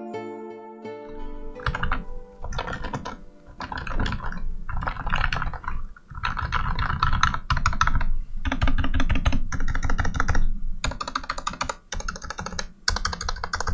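Typing on a custom mechanical keyboard in a 3D-printed PA12 nylon case: rapid key clicks in bursts of about a second, with short pauses between them. Soft ambient music fades out in the first second or so.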